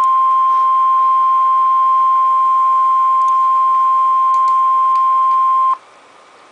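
NOAA Weather Radio 1050 Hz warning alarm tone: one loud, steady pitch that cuts off suddenly about five and a half seconds in, leaving faint radio hiss. The tone signals that an emergency warning is about to be broadcast.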